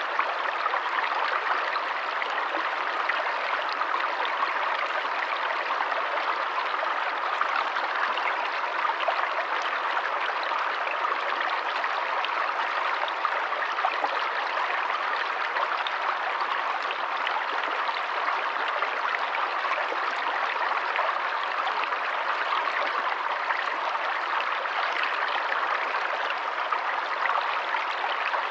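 Forest stream running steadily over stones, a constant splashing and trickling rush with no breaks.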